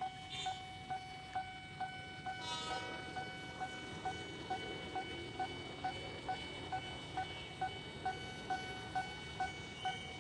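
Railway level-crossing warning bell ringing steadily, about two strikes a second, signalling that a train is about to pass. A short higher tone sounds about two and a half seconds in.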